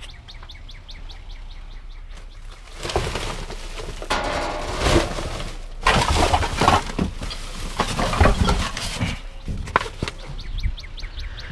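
Plastic trash bags rustling and crinkling as a gloved hand digs through a dumpster full of bagged trash and cardboard, starting about three seconds in, with a few sharp knocks.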